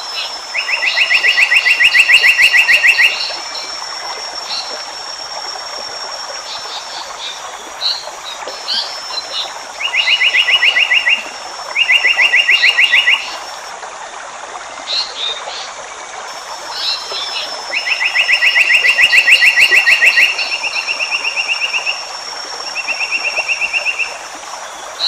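Asian paradise flycatcher calling: loud, fast rattling trills of even pulses, each lasting one to two and a half seconds, repeated five or six times, with short higher chirps between them over a steady natural hiss.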